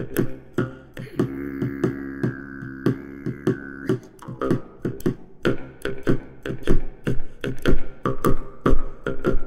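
Soundtrack music of rapid, uneven percussive hits, with a droning chord held from about one second in to about four seconds in.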